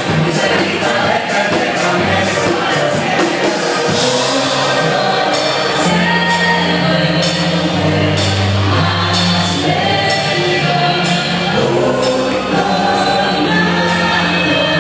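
A band playing a song with several voices singing together over a bass line and a steady high percussion beat.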